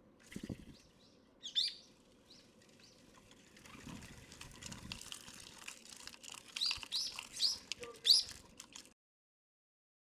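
Eurasian tree sparrows chirping and fluttering around a feeder, with short high chirps over a patter of wing flutters and pecking. One loud chirp comes about a second and a half in, and a run of chirps comes near the end before the sound stops abruptly.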